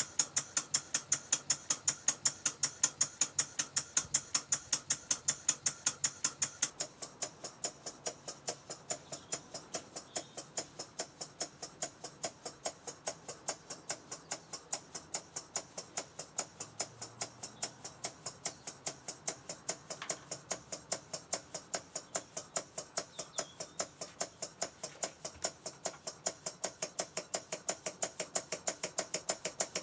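Rob Roy vertical model steam engine running steadily on compressed air, its exhaust puffing in an even beat of about four or five a second. The beat turns softer from about seven seconds in.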